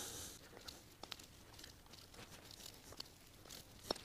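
Faint scattered clicks and light rustling from a T-bar Allen key being worked on the bolts of an aluminium engine generator cover, with a sharper click near the end.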